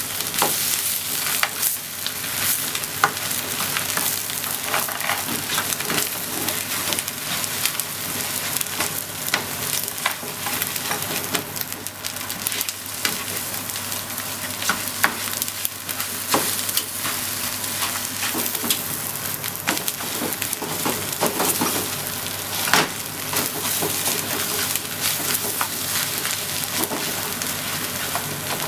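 Fried rice sizzling in a frying pan as it is stir-fried, with a flat spatula repeatedly scraping and clicking against the pan.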